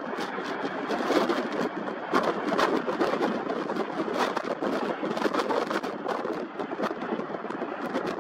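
Boeing KC-46A Pegasus tanker's twin turbofan engines on landing approach: a steady jet rush, crackling throughout, mixed with wind buffeting the microphone.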